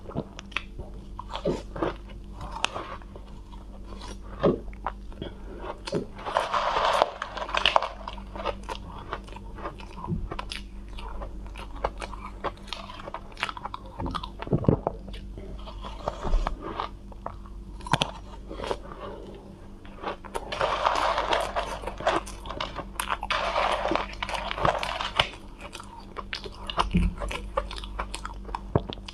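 Biting and chewing soft, powder-coated cotton ice: many small crisp crunches, with longer stretches of dense crunching about a quarter of the way in and again past the middle.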